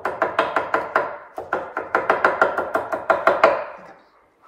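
Kitchen knife chopping cilantro on a wooden cutting board: quick, even strokes of the blade on the board, about five or six a second, with a brief pause a little over a second in. The chopping stops about four seconds in.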